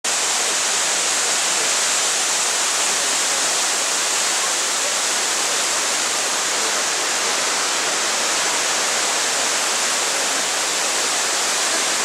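Waterfall of many thin streams pouring down a mossy cliff into a rocky river: a loud, steady rush of falling water with no change.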